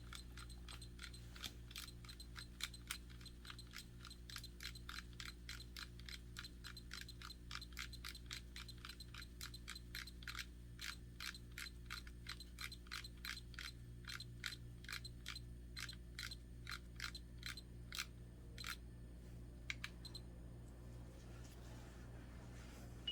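A long run of small, light clicks, about two or three a second, over a steady low electrical hum. The clicks stop about four seconds before the end, and a short high beep sounds right at the end.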